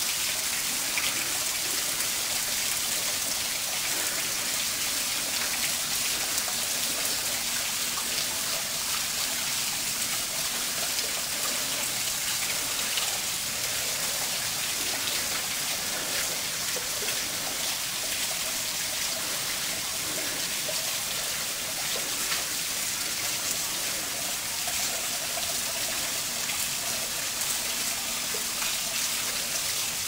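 Water falling and splashing at a largely frozen waterfall, a steady hiss.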